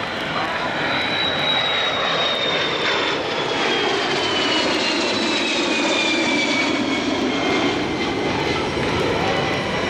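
Jet noise of a Kawasaki C-1 transport's two turbofan engines during a low display pass, with a high whine that falls slowly in pitch as the aircraft goes by.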